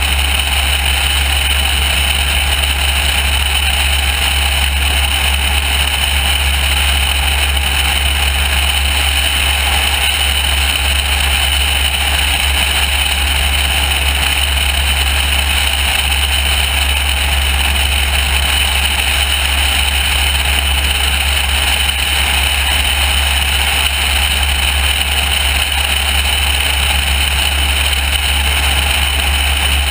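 Single-engine light airplane in steady cruise: a continuous low engine drone mixed with loud wind noise rushing over a camera mounted outside the aircraft.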